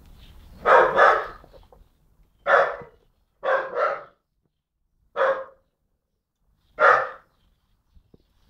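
Young Staffordshire bull terrier barking seven times, in pairs and singles spaced about a second or more apart.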